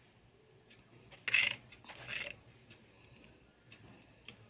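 A spoon handling salt for a minced chicken cutlet mixture: two short scrapes, then a few light clicks near the end.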